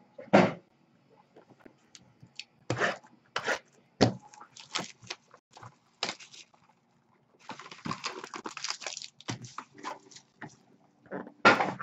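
Cardboard baseball card boxes being handled and opened on a desk: scattered taps, knocks and scrapes, with a stretch of rustling from about seven to nine seconds in.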